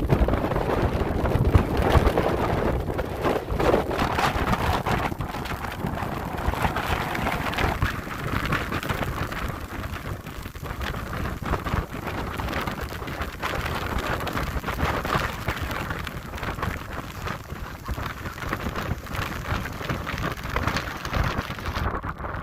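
Rain from a tropical storm's outer band falling hard, with gusting wind, as a dense hiss full of drop impacts that swells and eases in level.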